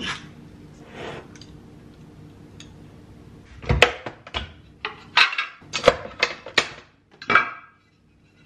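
Removable plates of an electric waffle iron being unclipped, lifted out and handled: a run of sharp hard clacks and knocks over about four seconds, coming after a stretch of faint steady hum.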